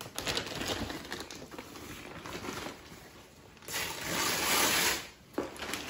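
Plastic mailer bag being handled, then crinkling loudly for about a second a little past halfway as it is pulled and torn open.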